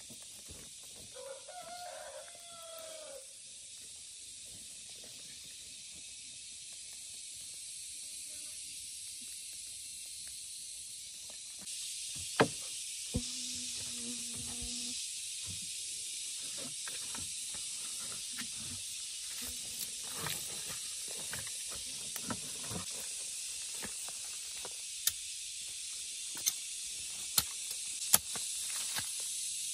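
Steady high hiss with two short animal calls, one about two seconds in and one near the middle, and scattered sharp knocks and taps through the second half.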